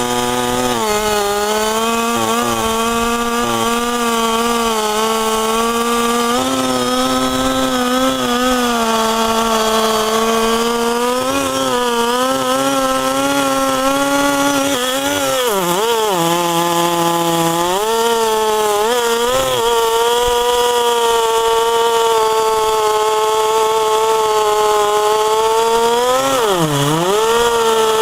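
Chainsaw running at high revs in a cut through a log, its pitch wavering as the chain loads in the wood, with two deep dips that recover quickly, one about halfway and one near the end.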